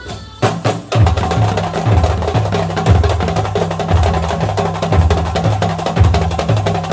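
Terbang kuntulan frame drums and a larger double-headed drum played together in a fast, dense rhythm. After a few scattered strokes, the full ensemble comes in about a second in, with a deep low stroke about once a second under quick hand strokes.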